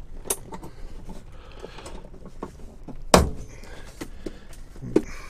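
Light clicks and knocks from the seat latches of a Toyota Hiace cab being handled, with one loud thunk about three seconds in and a smaller knock near the end.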